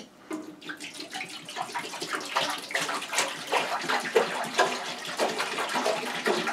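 Water pouring from a one-gallon plastic jug into the empty stainless-steel tank of a Vevor 10 L ultrasonic cleaner, splashing steadily with an irregular gurgling pulse, starting just after a small click.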